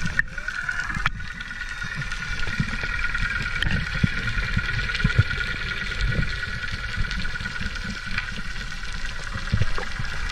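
Boat motor running steadily with a high whine, over irregular low thumps and rumble of water or wind.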